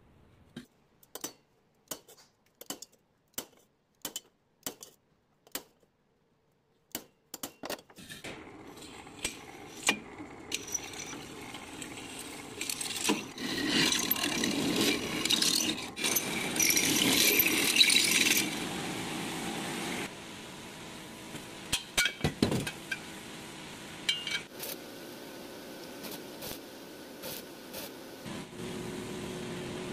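A series of sharp, separate taps, then a drill bit boring through square steel tubing, loudest for several seconds in the middle. It gives way to a steadier machine sound near the end, where an angle grinder cuts the steel tube.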